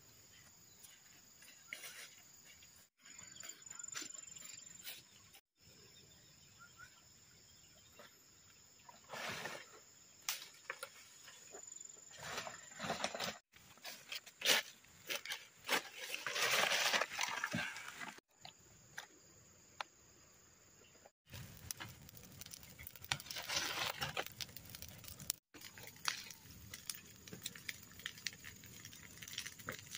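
Dry cut brush and leaves rustling and crackling as they are handled and dragged, in several separate stretches, over a steady high chirring of insects.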